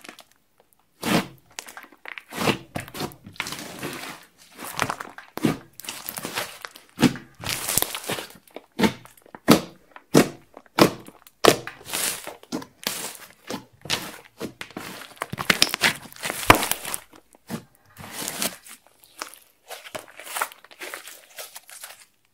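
Slime being worked by hand: an irregular run of sticky pops, clicks and squelches that stops shortly before the end.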